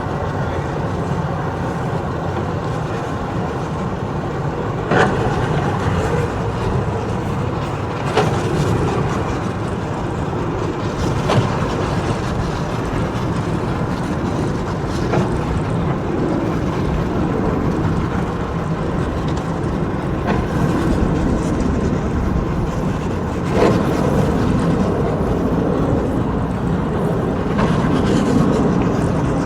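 Boat motors running steadily, with a few sharp knocks now and then.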